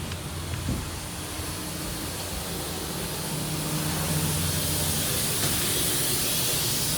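Jet airliner cabin noise: a steady rushing hiss over a low engine hum, growing gradually louder.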